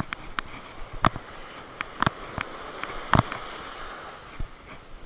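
Irregular sharp knocks and taps from gear and hands being handled right next to the microphone, over a steady wash of small waves breaking on the beach.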